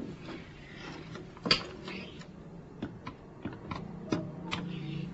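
A telephone being dialled: a quick, uneven run of sharp button clicks.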